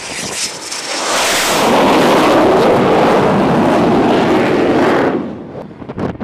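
Jet engine noise from a T-45 Goshawk trainer's turbofan as it lands on an aircraft carrier deck. The noise swells about a second in, stays loud, and falls away after about five seconds.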